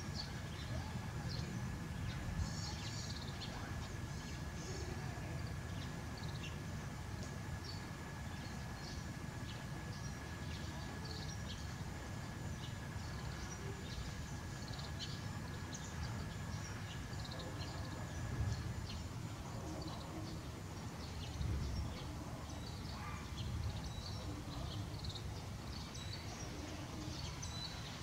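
Outdoor ambience of small birds chirping in short, scattered calls over a low steady rumble, with a faint steady high whine that stops about two-thirds of the way through.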